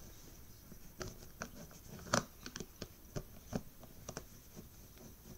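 Hard plastic Rubik's cube pieces clicking and scraping as a piece is forced toward its slot. The clicks are irregular and sharp, the loudest about two seconds in.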